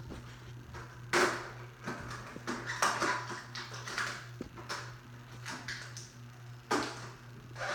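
Irregular handling noise during the work: a string of knocks, taps and scraping or rustling bursts, the loudest about a second in and near the end, over a steady low hum.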